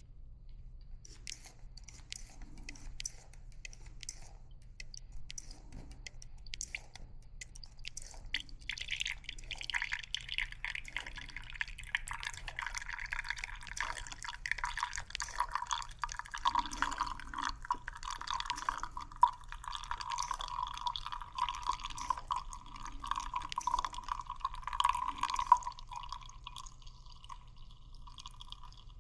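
Liquid pouring and dripping into a vessel during espresso-making, after some light clicks. The pour starts about a third of the way in, shifts lower in pitch as it goes on, and stops shortly before the end.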